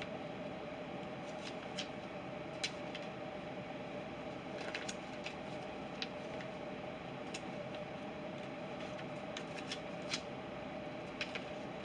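Pages of a Lego instruction booklet being leafed through, with scattered light clicks and rustles over a steady background hum.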